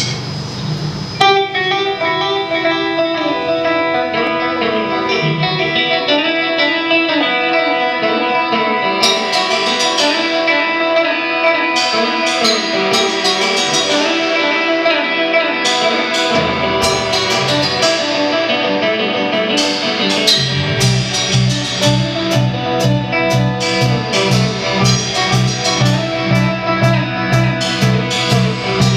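Live rock band playing: an electric guitar starts about a second in with sustained, ringing notes. Drum and cymbal hits join around nine seconds in, and a low, pulsing bass line comes in at about twenty seconds.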